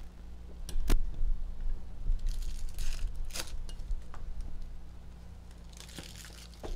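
Foil hockey card pack wrappers crinkling and tearing open, with two sharp clicks about a second in as packs and cards are handled. A steady low hum sits underneath.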